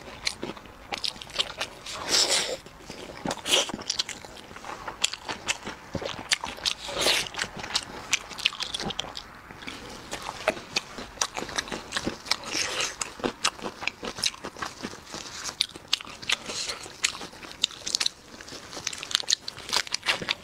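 Close-miked eating: biting and chewing meat and crisp lettuce leaves, with many irregular sharp wet clicks and crunches.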